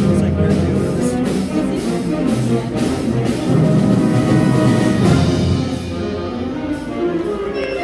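School concert band playing live: winds and brass over a steady beat of regular drum hits.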